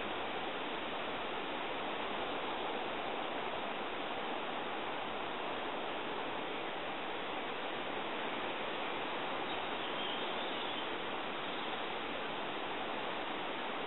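Steady, even rushing hiss with no bird calls or other distinct sounds in it.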